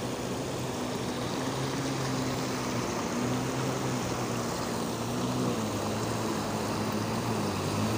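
Muddy floodwater rushing across a road and spilling over its edge, a steady rushing noise. Under it a motorcycle engine runs as the bike rides through the water, its note changing and growing a little louder near the end.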